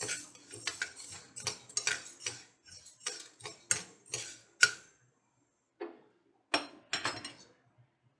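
Steel ladle stirring dry green gram (moong beans) as they roast in a nonstick frying pan: a quick run of short scraping, rattling strokes, about three a second, that stops about five seconds in, then a few more strokes a second later.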